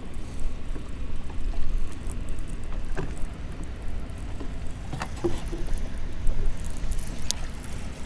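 Wind buffeting the microphone on a bass boat: a low, uneven rumble, with sharp clicks about three, five and seven seconds in.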